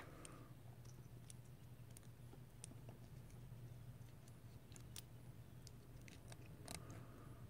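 Near silence with a few faint, scattered clicks of small metal parts being handled: a rebuildable tank atomizer deck and a screwdriver, over a steady low hum.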